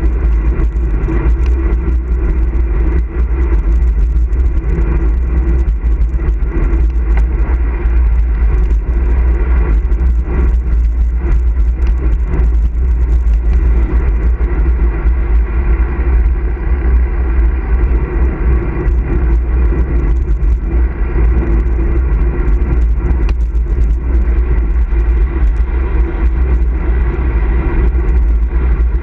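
Loud, steady wind rumble on the microphone of a handlebar-mounted camera on a road bike riding along an asphalt road, mixed with the hum of the tyres on the road surface.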